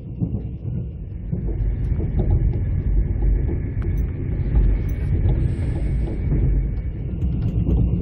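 Mugunghwa-ho passenger train running along the track, heard from inside the carriage: a steady low rumble of wheels on rail with quick rattles and clacks, growing louder about a second in.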